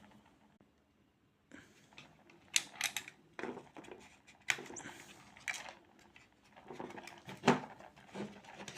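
Plastic casing of a Bluetooth speaker being pried open with a piece of wire: scattered clicks, scrapes and small snaps of plastic, beginning about a second and a half in.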